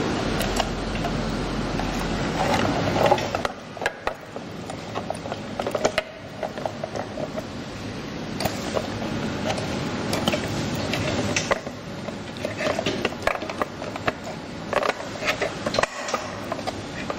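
Handling noise from a traffic light housing and its signal cable being worked by hand. Steady rustling for the first three seconds or so, then scattered clicks and knocks of the cable and housing being moved.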